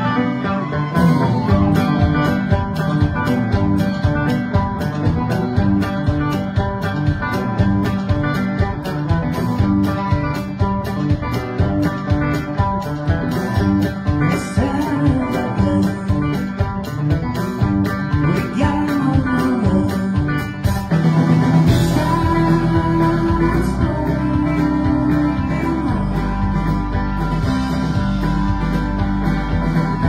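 A live band plays a banjo-led country-rock song, with banjo, electric guitar and a steady drum beat. About twenty seconds in, a deep bass part comes in and the sound fills out.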